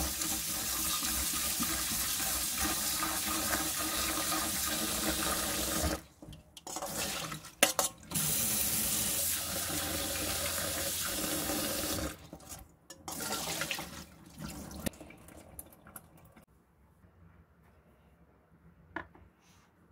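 Kitchen tap running into a stainless steel bowl of shredded potato in a steel sink while hands swish and rinse the strips to wash off starch. The water stops about six seconds in, runs again from about eight to twelve seconds, then comes in short spurts and goes quiet.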